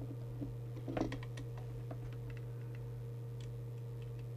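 Faint small clicks and ticks from a trimming tool turning a preset on a CB radio's circuit board and from handling the set, with a cluster about a second in, over a steady low electrical hum. The preset being trimmed is the one that calibrates the radio's transmit meter.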